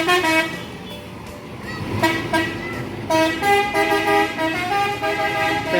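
Bus telolet horn playing a melody. A quick run of short notes opens it, then a pause of about a second, then longer held notes that change pitch step by step.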